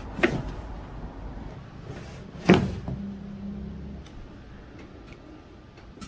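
Spinal joints cracking during a side-lying lumbar chiropractic adjustment: two sharp cracks about two seconds apart, the second much louder.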